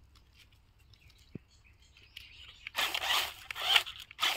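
Toy remote-control rock crawler driving in short bursts over dry leaves and grass: a rasping buzz of its small geared motor and tyres crunching leaves. It starts about three seconds in, after faint ticking.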